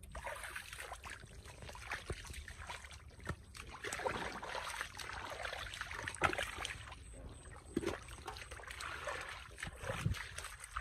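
Irregular splashing and sloshing of shallow muddy water as rubber boots wade through it and hands dig in the mud, with a few sharper splashes, the loudest a little past the middle.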